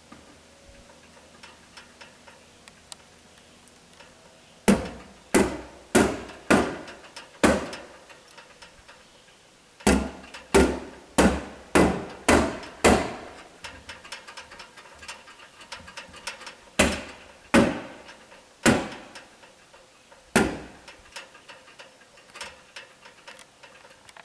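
Hammer strikes fastening Tyvek house wrap to a wall. They come in quick runs, five blows then six at a little over half a second apart, followed by a few more spaced ones, each blow ringing briefly.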